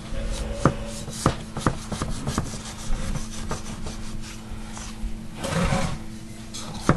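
A knife blade scraping around the inside wall of a metal tube pan, loosening a freshly baked fruitcake from the pan, with scattered light clicks of the blade against the metal and a longer rasping scrape about five and a half seconds in.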